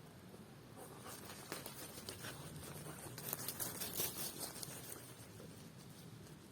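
Rustling and crackling of movement through dry forest-floor litter, a dense run of small crackles growing loudest about three to four and a half seconds in, then easing off.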